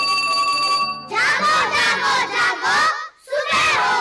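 A held music chord cuts off about a second in, and a group of children's voices breaks in, shouting together in loud bursts.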